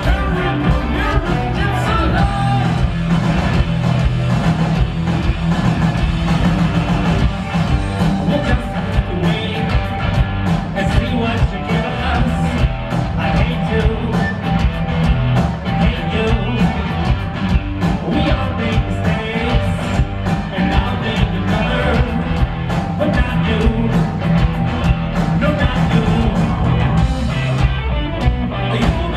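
Live rock band playing loudly: a singer over electric guitars and a drum kit with a steady beat, heard through a large hall's PA from out in the audience.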